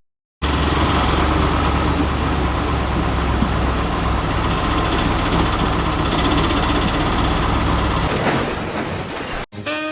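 Heavy engine running steadily, like a truck idling, with a deep low rumble. It changes about eight seconds in and cuts off abruptly just before the end.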